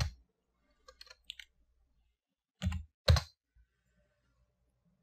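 Computer keyboard keys clicking: a sharp click at the start, a few faint taps about a second in, then two louder key presses about half a second apart a little under three seconds in, the 'y' and Enter that answer a terminal prompt.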